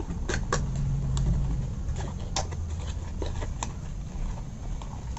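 Cardboard earbuds box and its inner tray being handled and pulled open: scattered light clicks and scrapes of paperboard, over a low background hum.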